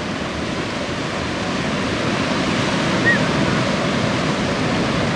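Steady rush of sea surf breaking and washing over rocks, with a brief high chirp about three seconds in.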